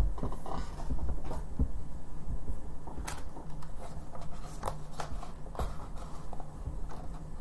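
A hardcover picture book being opened and its pages turned by hand: scattered taps, rustles and low bumps of handling.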